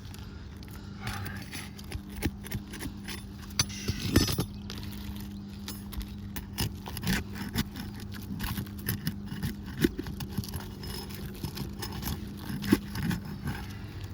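A metal prying tool scrapes and clinks under asphalt shingles as they are worked loose, in irregular taps and scrapes with a few sharper knocks. The old shingles are brittle and well stuck down, and tear rather than releasing cleanly.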